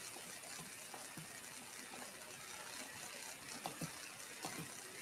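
Faint steady hiss of a video-call line, with a few soft clicks near the end.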